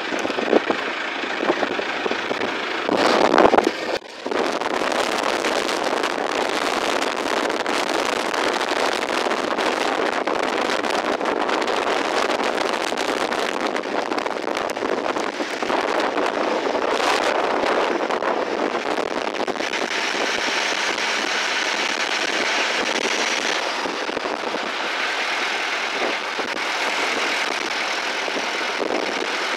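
Violent storm wind buffeting a car as it drives, heard from inside the cabin: a loud, steady rushing noise peppered with a dense crackle of small hits against the body. The rush turns hissier about two-thirds of the way through.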